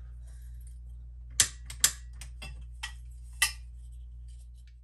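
Scattered sharp clicks and taps, about seven of them, as a handheld gas torch head is fitted to its blue fuel cylinder and handled, over a steady low hum.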